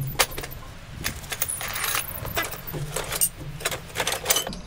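Handling noises: rustling of work gloves being pulled on, with irregular light metallic clinks from hand tools being picked up.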